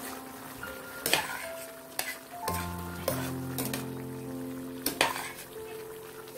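Beef and vegetables sizzling in a stainless steel pan while a utensil stirs them, knocking against the pan a few times, sharpest about a second in and about five seconds in. Soft background music with held notes plays underneath.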